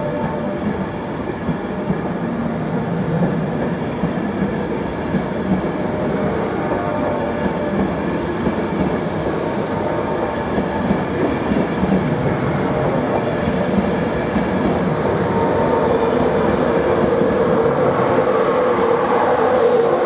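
A train of LNER Mark 4 passenger coaches running past along the platform, steel wheels on the rails, with some clickety-clack. It grows louder toward the end.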